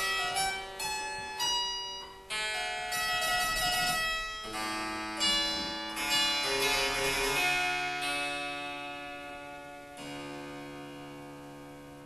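A 1960s Morley harpsichord playing quick plucked notes, then a chord about ten seconds in that is left to ring and slowly die away.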